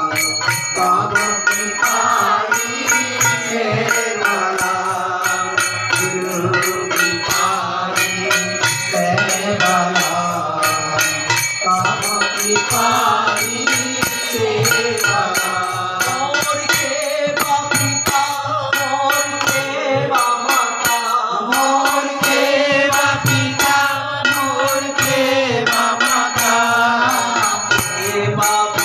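Hindu devotional song to Guru Maharaj, led by a swami singing into a microphone with harmonium accompaniment and a group singing along, over a steady, even percussion beat.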